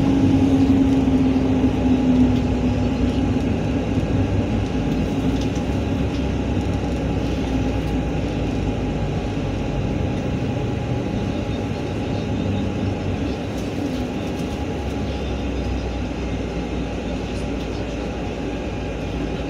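Interior noise of a NefAZ bus under way: a steady drone of engine and road rumble. A humming tone fades out about two seconds in, and the overall noise eases off slowly.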